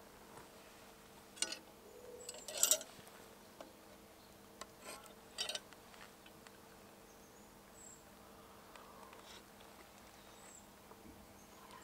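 Light metal clinks and scrapes of a utensil against camp cookware, a small pot and metal mugs. The busiest cluster comes about two and a half seconds in, with a few more single clicks around five seconds.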